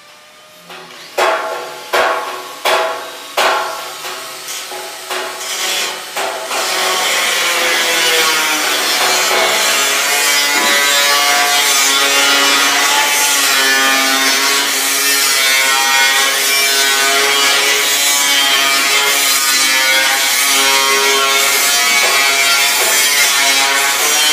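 Stainless-steel sheet being worked: about eight hammer blows that ring and come closer together, then continuous grinding or sanding on the metal, with the sheet ringing and wavering over a steady rasp.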